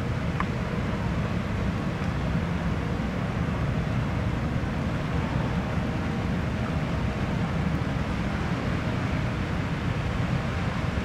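Steady low rumble of a large cruise ship under way, with a faint steady machinery hum, mixed with wind buffeting the microphone.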